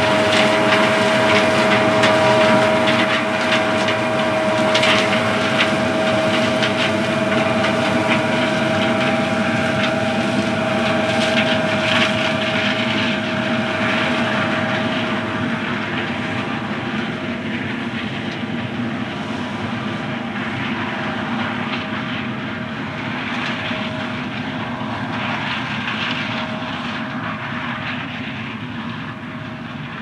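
Combine harvester running steadily as it moves away, a steady engine drone with a high whine that fades out about halfway through, the whole sound slowly growing fainter.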